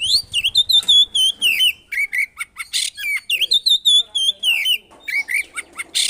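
A songbird kept as a 'burung poci' singing in full, busy song (what keepers call gacor): a rapid string of short, hooked whistled notes with a few brief pauses.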